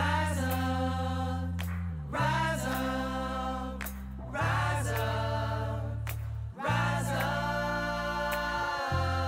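Gospel-style group singing over sustained low chords, with a new sung phrase and chord about every two seconds.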